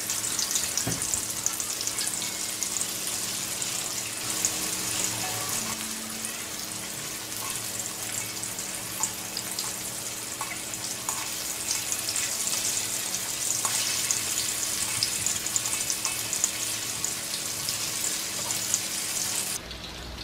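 Tofu cubes frying in hot oil in a wok: a steady sizzle full of small crackles and pops. It cuts off abruptly near the end.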